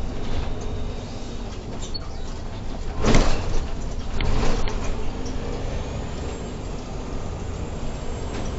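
Irisbus Crossway LE 12M bus heard from the driver's cab: steady engine and running rumble, with a short, loud burst of compressed-air hiss about three seconds in and a smaller swell of noise about a second later.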